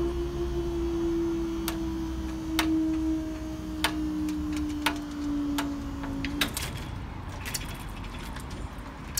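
Level crossing barrier mechanism's motor humming steadily as the barrier booms rise, its pitch sagging slightly, then stopping about six and a half seconds in. Light sharp clicks come roughly once a second over it.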